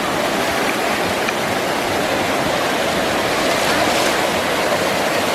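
Ocean surf washing in, a steady, continuous rush of breaking waves.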